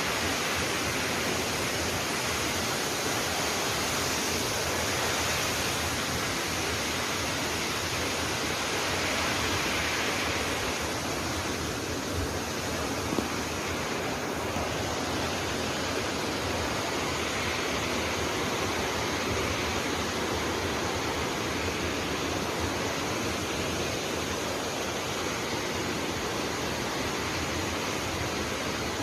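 Steady rush of a large waterfall, water crashing into its plunge pool. One brief click about 13 seconds in.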